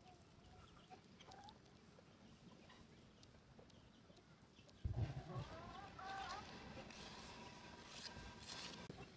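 Chickens clucking faintly, with a brief run of wavering calls a little past the middle and a sudden low thump just before them.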